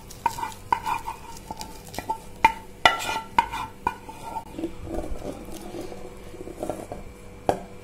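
Metal clinks and scrapes of steel cookware knocking against a steel bowl as hot caramel is poured out of the pan, each clink ringing briefly. They come quickly for the first few seconds, then thin out into softer handling sounds, with one last sharp clink near the end.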